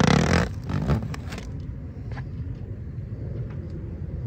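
Protective plastic film ripping as it is peeled off a plexiglass panel, a crackling tear in the first second or so, then a steady low rumble.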